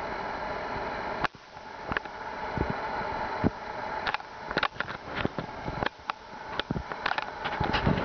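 A steady hum with sharp clicks and knocks. One click comes about a second in, and the hum dips after it. A scatter of clicks follows, thickest in the second half.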